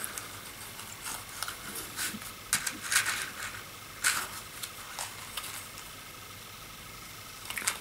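A few short, scratchy handling noises, roughly a second apart: a pipe smoker with a corncob pipe in his mouth getting a match out of a matchbox.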